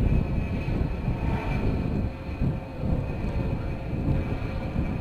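Jet engines of a Rockwell B-1B Lancer, four General Electric F101 afterburning turbofans, running as the bomber rolls along the runway: a heavy, uneven rumble with a steady high whine over it.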